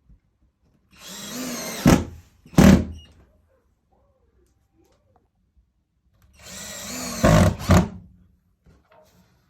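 Power drill running twice in short bursts of about a second, each burst followed by two loud knocks.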